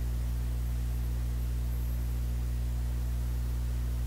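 Steady low electrical hum with its overtones and a faint hiss: mains hum and noise in the recording, with no other sound.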